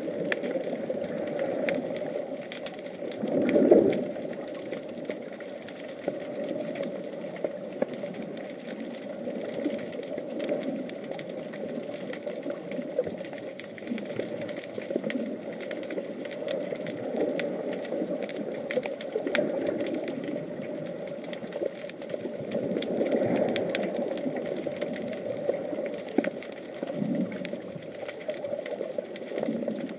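Muffled underwater sound picked up by an action camera in its waterproof housing: a steady low rush with scattered faint crackling clicks, and a louder swell about three and a half seconds in.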